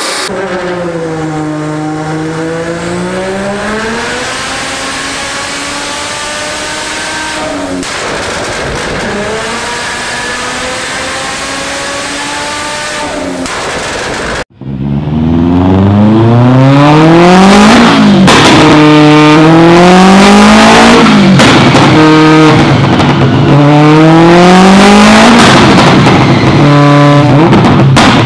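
Nissan GT-R's twin-turbo V6 running on a chassis dynamometer, its pitch dipping and then climbing slowly over several seconds. About halfway through it cuts off abruptly to a second car's engine, much louder, revved hard about half a dozen times in sharp rises and falls.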